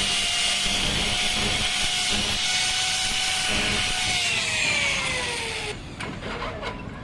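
An electric power tool running at full speed with a steady high whine over a dense hiss. About four seconds in it is switched off, and its whine falls in pitch as the motor winds down, stopping about six seconds in.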